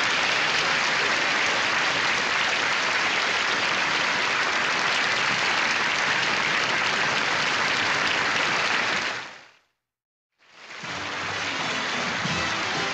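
Large banquet audience applauding steadily. The applause fades out about nine and a half seconds in to a moment of silence, then fades back in.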